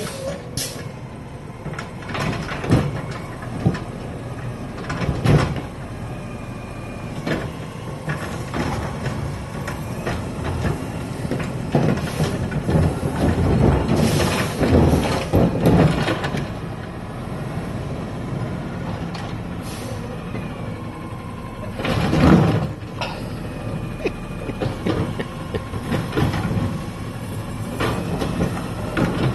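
Automated side-loader garbage truck running with its diesel engine rumbling, with repeated air-brake hisses and the clunks of its hydraulic arm grabbing a plastic wheeled trash can. Near the end the arm lifts the can over the hopper.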